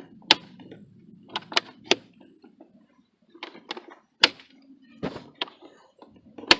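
Airbox lid clips on a BMW E38 740iL being snapped shut one after another: a series of separate sharp clicks and snaps, the loudest about four seconds in.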